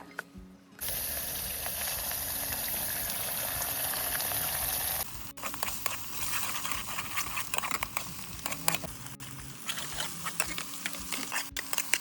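A steady hiss, like liquid pouring or food sizzling, runs for about four seconds and cuts off suddenly. Then comes a quick run of light clicks and clinks, metal cookware and utensils being handled.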